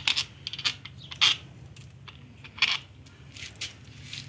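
Metal tools and small steel parts clinking and tapping against each other, a dozen or so sharp clinks with a bright ring, over a faint steady low hum.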